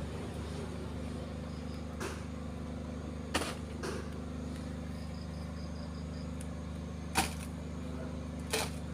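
Five sharp knocks, irregularly spaced and the loudest about seven seconds in, over a steady low hum. A faint quick run of high chirps comes about five seconds in.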